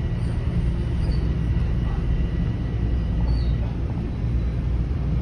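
Toronto Rocket subway train in motion, heard from inside the car by the doors: a steady low rumble of wheels and running gear with a faint steady high whine.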